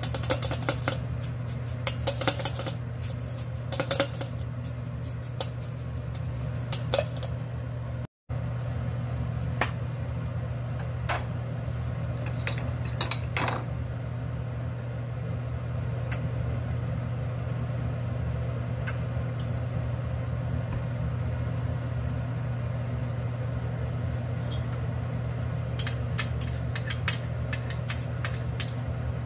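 Stir-fried dried anchovies shaken in a stainless-steel mesh strainer against a steel bowl: quick light metallic rattling and clinking for the first several seconds, over a steady low hum. Later come a few scattered clinks, and a short run of clinks near the end as seasoning is spooned into the wok.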